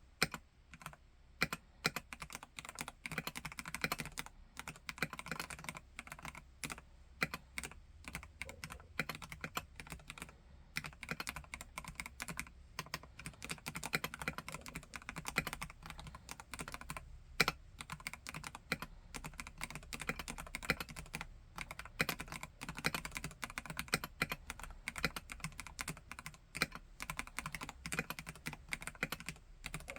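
Continuous fast typing on a Vortex KBt RE:68 mechanical keyboard with Gateron G Pro Red linear switches: a steady stream of key clacks.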